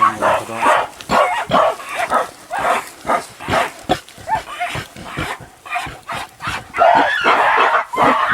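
Gorilla sound effect: a rapid string of short pitched calls, several a second, building into a longer, louder call about seven seconds in.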